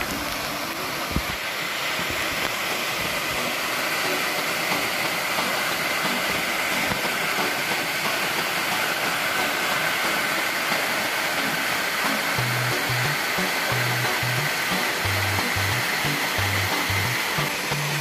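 Steady rushing of a waterfall pouring into a pool, under background music whose low bass notes come in about two-thirds of the way through.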